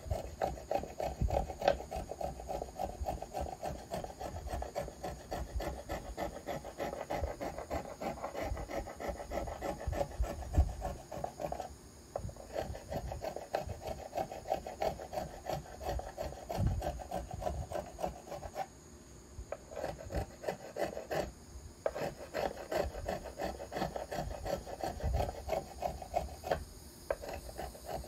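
A small hand tool shaving the arch of a wooden violin plate in quick, short, repeated strokes, with a few brief pauses, as the surface is smoothed down.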